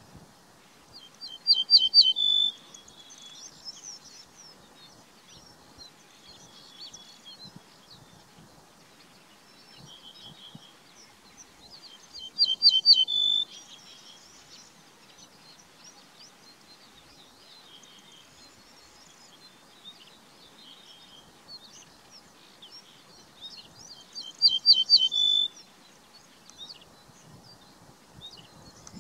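Ortolan bunting singing: three short song phrases about eleven seconds apart, each a quick run of four or five repeated notes ending in a longer held note.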